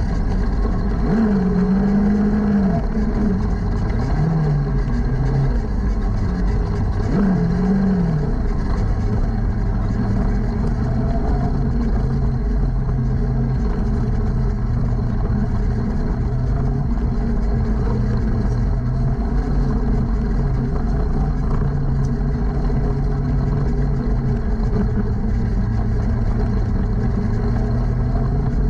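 Jr sprint car's engine heard from inside the cockpit as the car rolls at low speed, about 15 mph. Its pitch rises and falls a few times in the first eight seconds, then holds steady.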